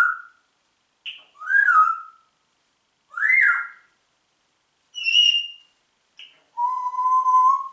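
Congo African grey parrot whistling: about half a dozen short whistles that rise and fall in pitch, then one long, nearly level whistle near the end.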